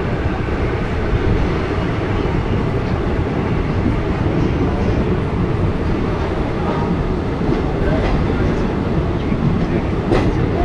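Passenger train running along the track: a loud, steady rumble of wheels on rails, with a few sharp clacks near the end.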